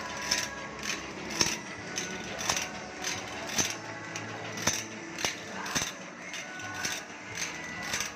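Metal file scraping across saw teeth in even strokes, about two a second, as the saw blade is sharpened by hand.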